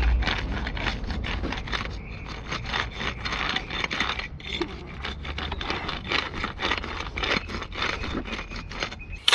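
Brick trowel scraping and knocking on bricks and mortar, a quick, uneven run of short scrapes and taps over a steady low rumble that cuts off just before the end.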